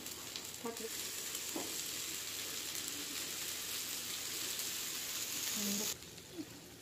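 Egg omelette with afritada filling sizzling in a nonstick frying pan as it is rolled over with a wooden spatula: a steady frying hiss that cuts off suddenly about six seconds in.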